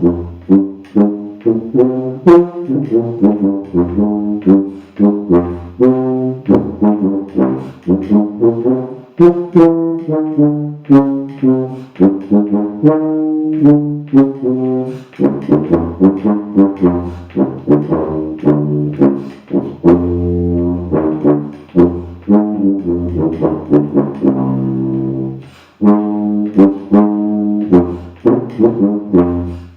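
Plastic B-flat tuba with rotary valves playing a passage from a band part: a string of short tongued notes, with a few longer held notes along the way.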